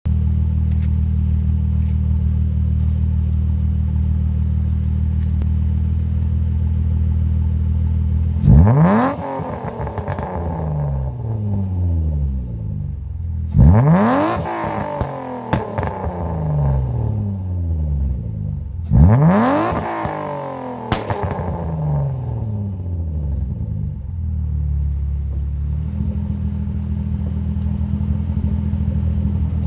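BMW E36 M3's S52 straight-six through an aftermarket exhaust, idling steadily, then blipped three times about five seconds apart. Each rev climbs sharply and falls back slowly with crackles and pops on the overrun from its burble tune, before the engine settles back to idle.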